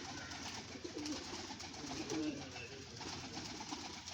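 Domestic pigeons cooing, a few low, wavering coos.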